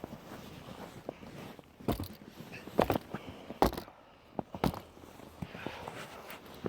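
Footsteps crunching in wet snow: a few sharp steps, the loudest near the middle, over a low background hiss.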